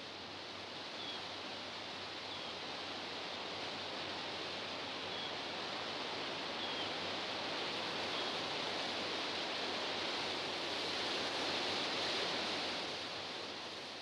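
Steady wind rushing through tall grass and open crop fields, a hiss that swells slowly and then eases. A few faint, short, high chirps sit over it.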